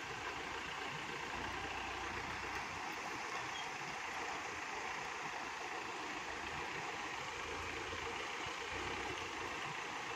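A distant SUV engine running low as the vehicle creeps over the rocks, with a couple of deeper swells from the engine, under a steady rushing hiss.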